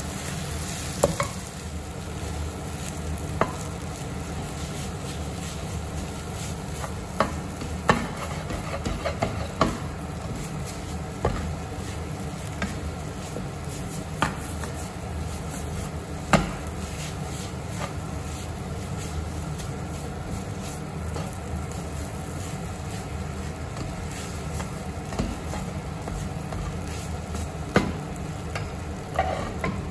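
A spatula stirring and tossing instant noodles with egg in a frying pan, with irregular taps and scrapes of the spatula against the pan over a light sizzle. A steady low hum runs underneath.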